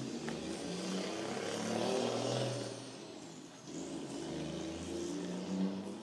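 A car passing by on the road: tyre and engine noise swell to a peak about two seconds in and fade. A second vehicle's noise builds again soon after.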